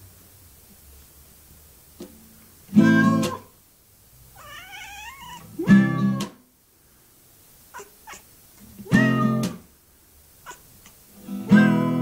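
Acoustic guitar played as single strummed chords, four of them a few seconds apart, each left to ring and die away. Between the first two chords a cat gives one wavering meow.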